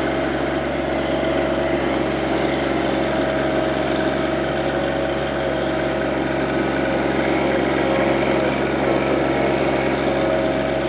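John Deere 2025R compact tractor's diesel engine running at a steady speed, with no change in pitch.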